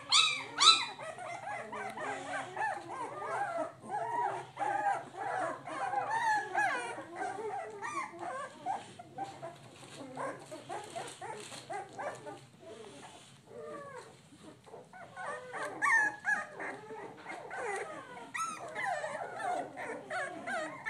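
Three-week-old pit bull puppies crying almost without pause in short, high-pitched squeals and whimpers that bend up and down in pitch. The loudest cry comes right at the start, and the cries thin out for a few seconds in the middle.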